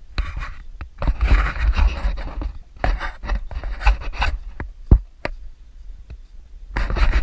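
Handling noise from a handheld camera: irregular rubbing and scraping against the body and microphone, with a few sharp knocks, the loudest about five seconds in.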